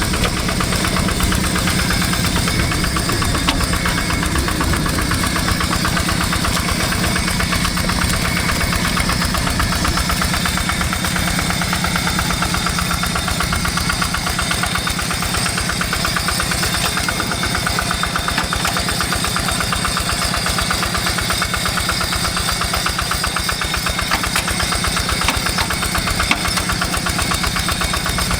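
Single-cylinder diesel engine of a two-wheel hand tractor running steadily with a fast, even knock while plowing a rice paddy.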